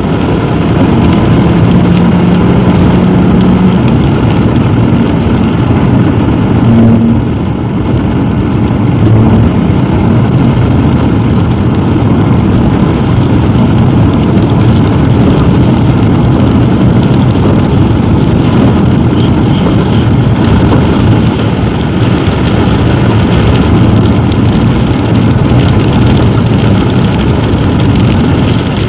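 Steady road noise inside a car driving on a wet highway: tyres on the wet road surface with the engine running underneath. A faint steady hum rises above it about a second in and lasts a few seconds.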